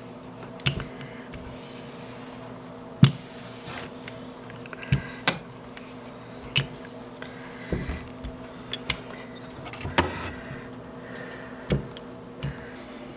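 Wooden rolling pin working a sheet of dough on a countertop: scattered light knocks and clicks as the pin and its handles bump the counter, the loudest about three seconds and ten seconds in. A steady low hum runs underneath.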